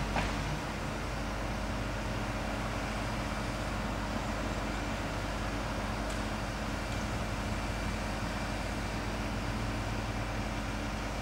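Diesel engine of a crane truck idling steadily, a constant low hum.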